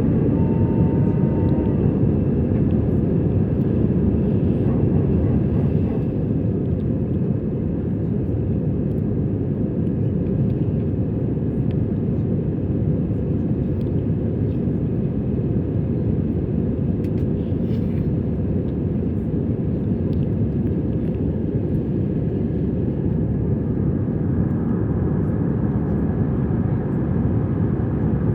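Airbus A320-200 cabin noise during the climb: a steady engine and airflow rumble, slightly quieter from about six seconds in.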